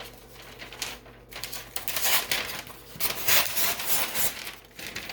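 Handling noise: irregular rustling and clattering, loudest in the middle, as materials are moved about.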